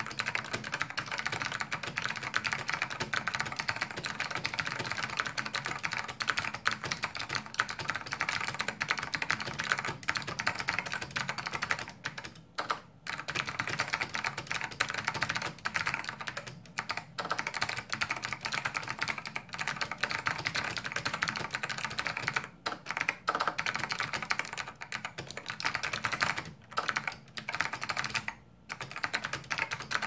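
Fast, continuous typing on a Dell AT101W keyboard fitted with Matias clicky switches (Matias housings on the original black Alps stems): a dense stream of clicky keystrokes. It breaks off for a few short pauses in the second half.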